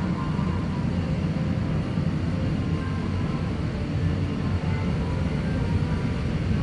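Steady low rumbling hum inside the cabin of an Airbus A350-1000 airliner, the airflow and machinery noise of the aircraft's systems, with faint snatches of higher tones over it.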